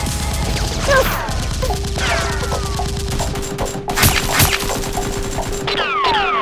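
Sound-effect gunfire dubbed over a toy-blaster fight: sharp shots, with a burst of cracks about four seconds in. Repeated falling ricochet whines and bullet impacts on brick come through it, over a steady tone.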